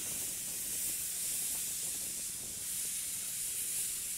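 Steady hiss of steam escaping at the cylinders of a slowly moving C58-class steam locomotive.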